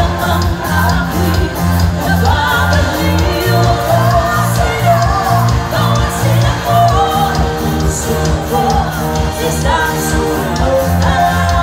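Live band playing loud, with female vocals over electric guitar, bass and a steady drum beat.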